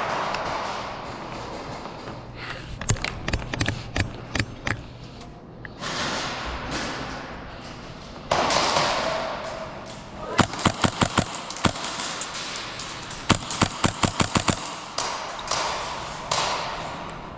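Airsoft gunfire in close quarters: a string of single shots, then two rapid strings of about half a dozen shots each.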